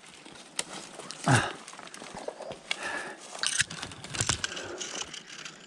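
Rustling of brush and dry leaves with scattered twig snaps and clicks, irregular and close by; one louder swish about a second in.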